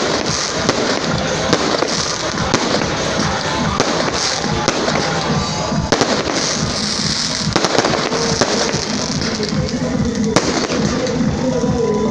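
Fireworks display: a steady, rapid string of bangs from the bursting shells, with music playing underneath.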